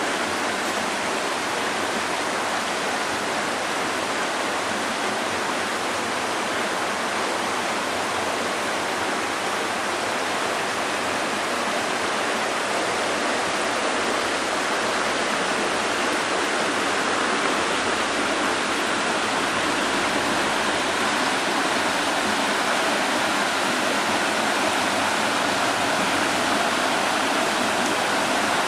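Shallow stream flowing over and between rocks, a steady rush of water that gets a little louder in the second half.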